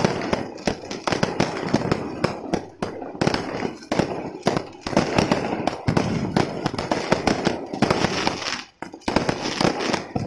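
Fireworks display going off in a dense, rapid barrage of bangs and crackles, with brief lulls about three seconds in and near the end.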